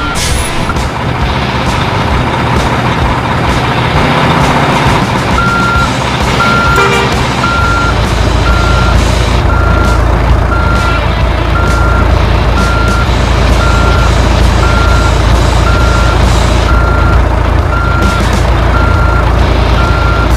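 Reversing alarm beeping steadily about twice a second, starting about five seconds in, over a loud continuous vehicle noise with a low rumble.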